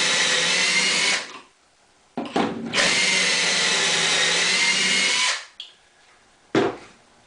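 Electric drill spinning a stepped pocket-hole bit with a depth stop, boring pocket holes in cedar through a Kreg pocket-hole jig. There are two runs of steady whine: the first stops about a second in, and the second starts with a brief blip around two seconds in and then runs for about three seconds. A short knock comes near the end.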